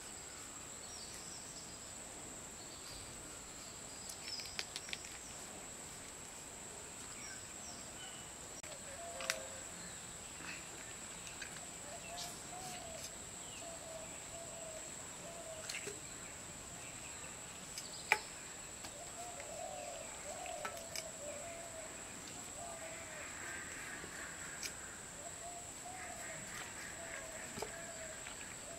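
Rural outdoor ambience: a steady high insect drone, like crickets, with faint wavering bird calls. A few sharp knocks of a boti blade cutting chicken and turnip stand out, the loudest about two thirds of the way in.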